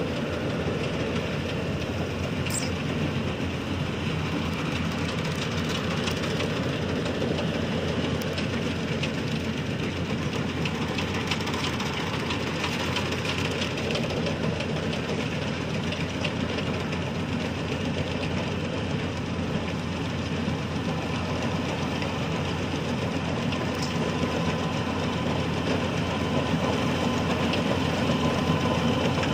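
Rice combine harvester's engine running steadily under load as it cuts the standing crop, growing a little louder near the end as the machine comes closer.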